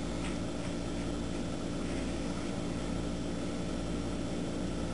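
Steady electrical hum with a constant hiss: room tone, with no distinct event.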